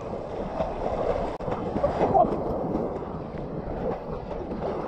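Wind buffeting the microphone over the wash of shallow surf on a sandy beach, a steady rushing noise.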